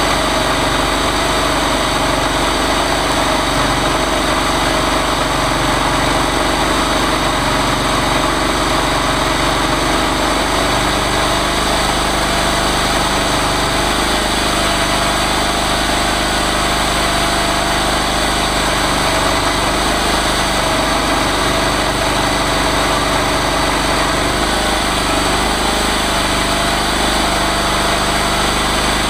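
Small gasoline engine of a chainsaw mill running steadily at a constant speed.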